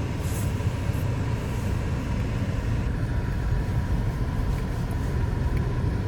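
Car driving slowly on a snowy, icy road: a steady low rumble of engine and tyres.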